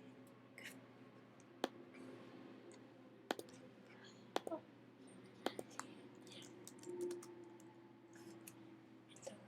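Faint, scattered clicks of a computer mouse, about half a dozen sharp single clicks a second or more apart, over a faint steady low hum.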